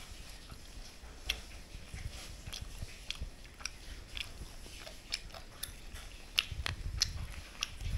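Light, irregular crackles and clicks of crisp kanom krok crust breaking as fingers pull the coconut puddings apart.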